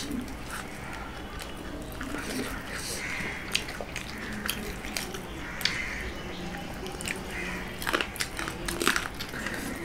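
Close eating sounds of two people eating chicken curry and rumali roti by hand: chewing and mouth sounds with scattered small clicks, over a faint steady low hum.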